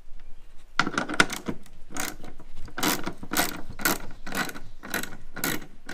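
Hand socket ratchet clicking in quick repeated strokes, starting about a second in, as it backs out a 10 mm bolt from a bumper bracket.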